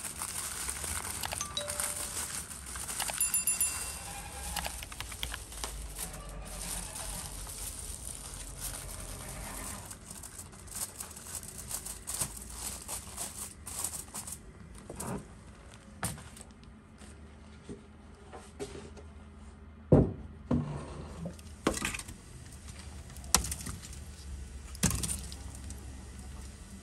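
Aluminium foil crinkling as it is pressed down around a baking tray, followed by sparser clicks and a few sharp knocks, the loudest about two-thirds of the way through.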